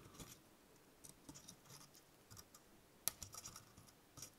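Near silence with a few faint small clicks and scratches, one a little louder about three seconds in, from fingers, wire and metal alligator clips being handled while a wire is soldered onto an LED lead.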